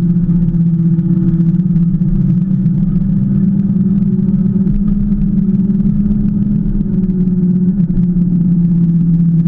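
A Qulbix Raptor electric motorbike with a Cromotor direct-drive hub motor riding along: a steady low hum over road and wind noise, dipping slightly near the end.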